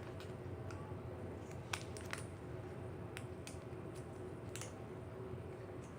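Faint, scattered clicks and small handling noises from a torn rubber key wristband and its plastic key chip being turned over in the hands, over a steady low hum.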